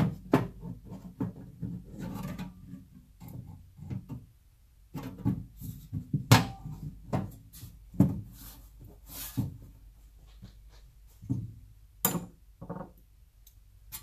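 Steel lid of a rack-mount power supply case being slid and seated onto its chassis: metal scraping and rubbing with a series of knocks and clicks, the sharpest about six, eight and twelve seconds in, as hands press it down.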